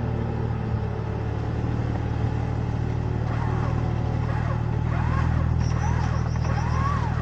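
Off-road 4x4 engine running steadily at low revs while the vehicle crawls through an obstacle. From about halfway, a series of short rising-and-falling calls sounds over it.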